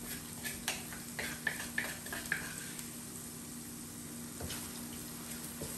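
A wooden spoon scraping and knocking in a stone mortar, a quick series of clicks and scrapes over the first two or so seconds. Under it a pan of sauce sizzles gently on the stove over a steady low hum.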